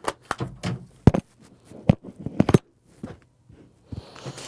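Handling of a camera and lens being fitted into a chest-vest camera mount: a series of sharp clicks and knocks of hard plastic and metal, the loudest about a second in and around two to two and a half seconds in, with a short lull before one more knock near the end.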